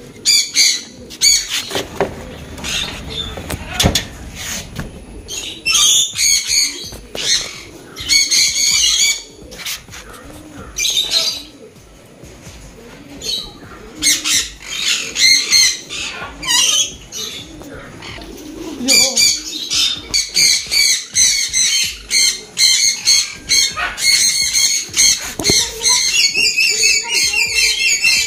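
Small birds chirping and squawking in repeated bouts of high-pitched calls, becoming a near-continuous warbling chatter in the last third.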